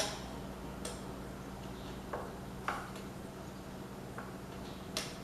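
Scattered light clicks and taps, about six in all, with the sharpest at the start and near the end, from tools and parts being handled. A faint steady hum sits underneath.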